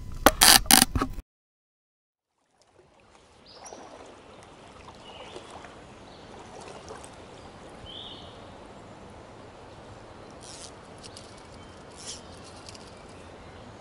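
Shallow creek water flowing and trickling steadily, with a few faint clicks. It is preceded by a brief loud burst of sound in the first second, then a second and a half of dead silence before the water fades in.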